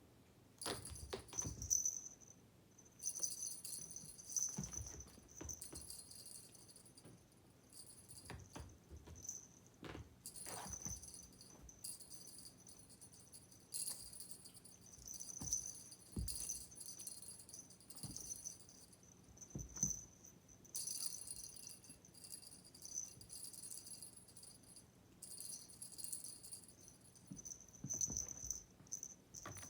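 A small bell jingling in repeated bursts a second or two long, with soft knocks, as a kitten bats and plays with it.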